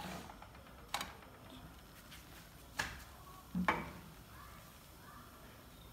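Three sharp clicks and knocks of a wooden-handled silicone spatula against a frying pan and the gas stove's grate: one about a second in, one just before three seconds, and the loudest, with a dull thud, nearly four seconds in as the spatula is set down on the grate.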